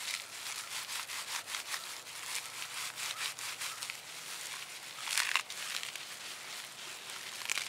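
Dry white birch bark crushed and rubbed between the palms, shredding it into fluffy tinder: a steady papery rustling with many small crackles, and a louder scrunch about five seconds in.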